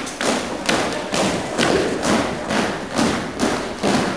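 A squad of boys marching in step on a wooden hall floor, their feet landing together in a steady rhythm of thuds about twice a second.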